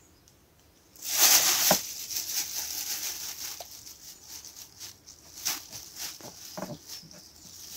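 A knife scraping and shaving bark off small oak twigs: it starts about a second in with a loud scratchy rustle, then goes on as irregular scraping with small clicks.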